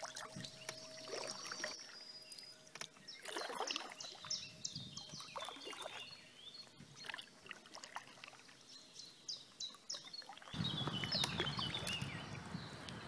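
Small birds chirping and singing over paddle strokes dipping and splashing in calm water. About ten seconds in, a louder steady rushing noise starts suddenly and holds.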